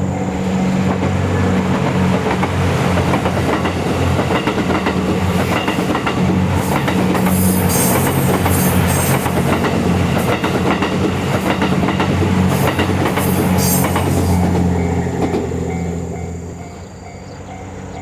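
JR West Series 87 (Twilight Express Mizukaze) diesel-hybrid train passing: a steady engine hum under the rumble of the cars, with wheels clicking over rail joints through the middle. Near the end, once the train noise drops, a level-crossing bell ringing with an even beat.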